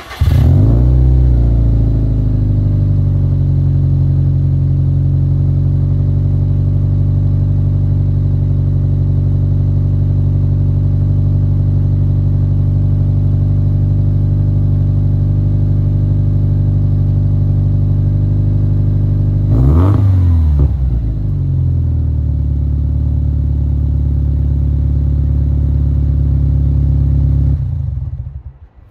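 Subaru turbocharged flat-four with a catless downpipe and Invidia R400 cat-back exhaust starting up, its pitch settling into a steady idle, given one short rev about two-thirds of the way through, then shut off near the end.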